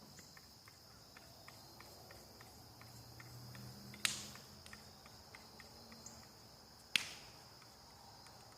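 Night crickets chirring steadily, with a regular faint ticking of insect chirps. Two sharp cracks stand out, about four seconds in and again near seven seconds.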